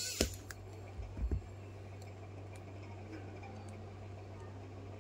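Small clicks and a few soft knocks from handling a smartphone and its small screws during reassembly, over a steady low hum. A sharp click comes just after the start, and two or three dull knocks about a second in.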